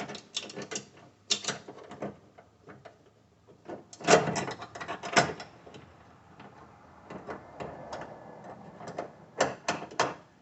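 Sharp clicks and mechanical rattles from a car trunk latch assembly being handled and fitted into place. The loudest clusters come about four to five seconds in and again near the end.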